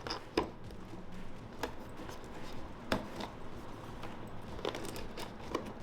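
Cardboard keyboard box being opened by hand: a handful of scattered sharp clicks and knocks with scraping and crinkling of cardboard and packaging between them.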